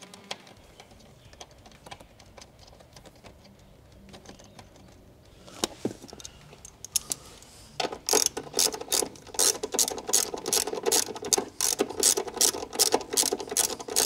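Rapid ratcheting clicks, about four a second, starting about eight seconds in after a few scattered clicks and faint handling noise, as a ratchet is worked on a fastener behind the trim.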